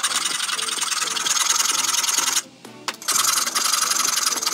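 Steel plate being filed by hand: two long rasping strokes of metal scraping on metal, the second starting about three seconds in after a short pause.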